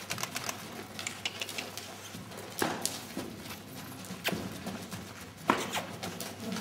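Hoofbeats of a small pinto pony trotting on the soft footing of an indoor arena, with a few sharp knocks standing out.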